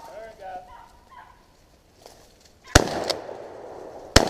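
Two shotgun shots about a second and a half apart, the first followed by a trailing echo, and the rabbit is rolled on the second shot. Before them, beagles bay on the rabbit's trail.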